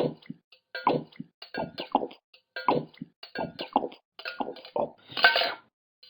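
Close-up chewing of a crunchy snack: a run of crunches about one to two a second, with a louder, noisier crunch about five seconds in.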